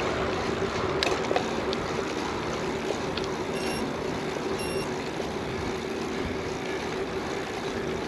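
Steady rushing noise of a gravel bike on the move, with wind on the microphone and rolling noise under a faint steady hum. Two short electronic beeps sound about a second apart midway.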